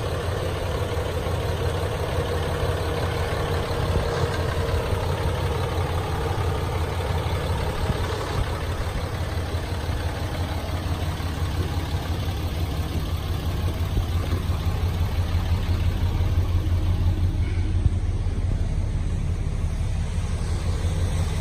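Ram 2500 Heavy Duty pickup's engine idling steadily, a constant low hum.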